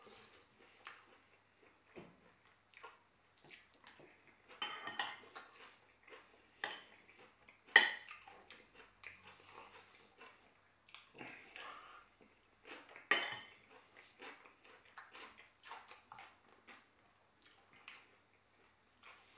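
Metal fork clinking and scraping against a ceramic salad bowl while cucumber salad is picked up, in scattered short strokes, with sharper clinks about 8 and 13 seconds in.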